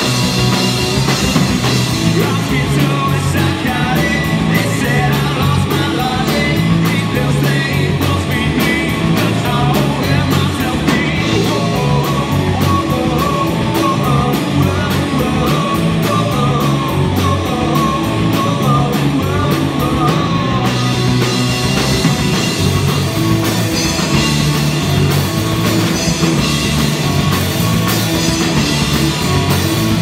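Live rock band playing: electric guitars over a drum kit.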